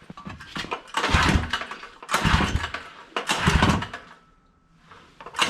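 Recoil starter cord of a Craftsman 6.5 hp single-cylinder engine pulled three times, about a second each, turning the engine over with the spark plug out and a compression gauge threaded in; another pull starts near the end. It is a compression test of the engine after new piston rings.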